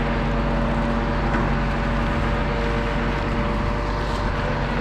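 An engine running steadily at constant speed, with a low hum and no change in pitch.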